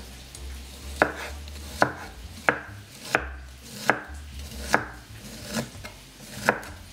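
Chef's knife slicing an onion into thin strips on a wooden cutting board: about eight sharp knocks of the blade reaching the board, roughly one every three-quarters of a second.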